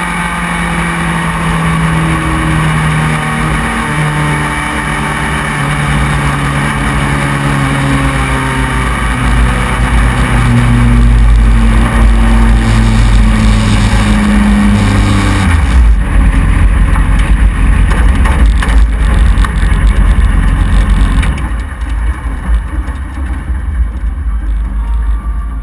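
Race car engine heard onboard, running at speed with its pitch wavering up and down through the turns. About 15 seconds in it comes off the throttle and the note drops to a low rumble, and it quietens further near the end as the car slows.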